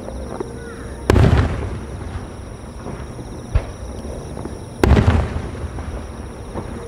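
Aerial firework shells bursting: two heavy booms with a rolling echo, about a second in and again near five seconds in, and a smaller, sharper bang between them.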